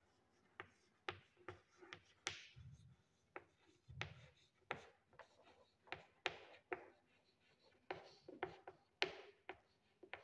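Chalk writing on a blackboard: faint, irregular taps and scratches as each letter is stroked out.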